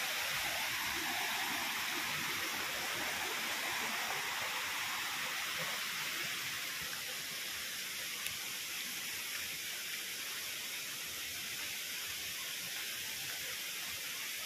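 Steady rush of flowing water, like a swollen hillside stream, easing a little after about six seconds.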